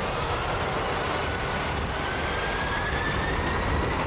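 Boeing 747's four jet engines spooling up toward takeoff thrust: a rising whine over a steady rush of jet-blast noise.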